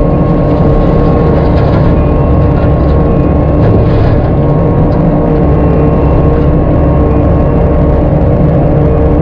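Skid steer engine and hydraulic Virnig disc mulcher running steadily: a constant whine over a loud, even engine drone.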